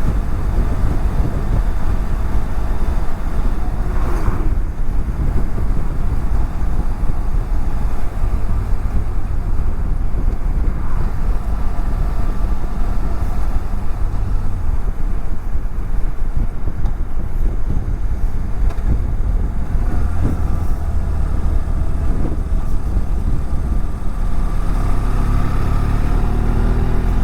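Motorcycle riding at speed heard from a helmet-mounted camera: steady wind rush on the microphone over a BMW F700GS's engine drone, with an engine note rising in pitch near the end.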